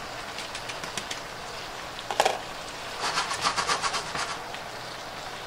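Taco filling sizzling steadily in a skillet on a glass-top electric stove. About two seconds in comes one sharp clink, then a little over a second of quick rattling as the skillet is jiggled on the cooktop.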